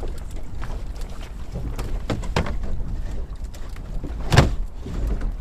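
Knocks and thuds of a muskie being handled on a measuring board in a boat, over a low steady rumble. Several light knocks, with the loudest thud about four seconds in.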